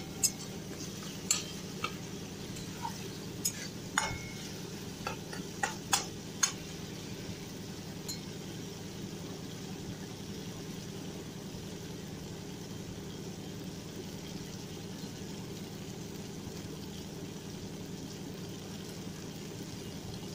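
A metal spatula scrapes and clicks against a metal kadhai a handful of times over the first six seconds, stirring masala paste. After that the masala sizzles steadily in the oil, with a low hum under it.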